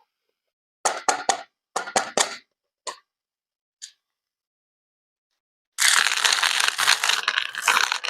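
Crunching and crackling of something being crushed: a few short bursts, then a dense run of crackling starting about six seconds in.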